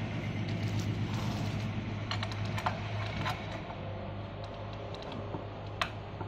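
Scattered light clicks and taps of a black metal bracket and small hardware being handled as a nut is threaded onto a bolt by hand, over a steady low hum.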